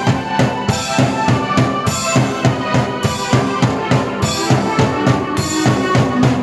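Drum kit and keyboard played together by one person: a steady beat of bass drum and snare, about four strokes a second, under held keyboard chords and melody.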